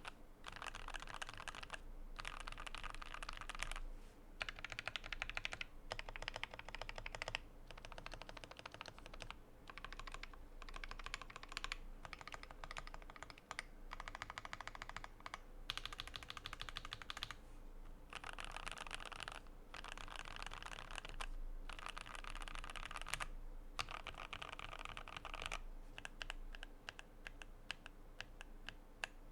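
Typing on a Keychron Q10 mechanical keyboard with hand-lubed Gateron Oil King linear switches on a polycarbonate plate. Fast runs of key clacks are broken by short pauses every few seconds.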